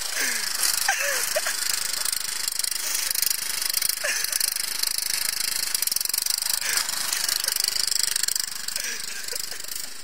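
Riding lawn mower's small engine running as it is driven across the grass, growing a little quieter near the end as it moves away.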